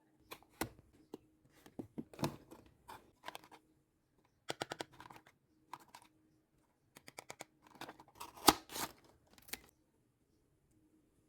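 Blind-box packaging being opened by hand: short crinkles, tears and clicks in irregular clusters with pauses between them. The loudest is a sharp click about eight and a half seconds in.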